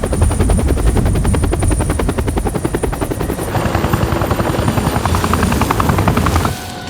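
Helicopter in flight, its rotor blades beating in a fast, even chop over a low engine rumble; the sound cuts off abruptly near the end.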